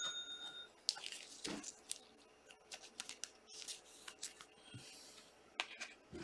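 Faint rustling and small clicks of trading cards being handled and slid one past another. A bell-like chime tone fades out at the very start.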